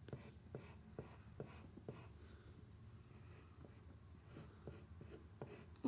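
Pencil drawing on paper: faint scratching strokes with light, irregular ticks of the lead on the sheet.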